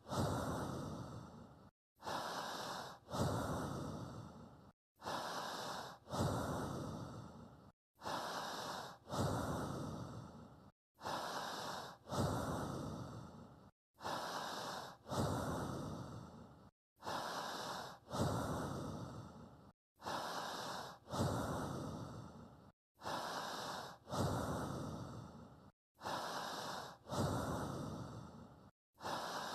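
Slow, evenly paced human breathing, about one breath every three seconds: a shorter sound, then a longer one that fades, with a brief silence between breaths. It repeats identically like a loop, as a breathing guide to breathe in time with.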